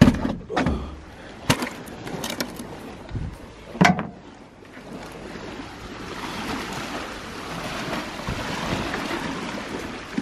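Oyster shells knocking and clattering in a plastic bucket as it is carried, a handful of sharp knocks in the first four seconds. From about halfway a steady rush of surf washing onto the beach takes over and slowly grows louder.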